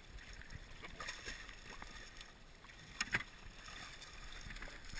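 Water lapping and splashing around a swimming Labrador retriever as it is hauled out of the water, with two short sharp sounds about three seconds in.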